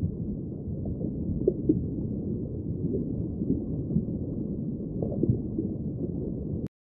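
A deep, steady rumble with faint scattered crackles, all in low pitches, that cuts off abruptly near the end: a sound-design effect laid under a logo animation.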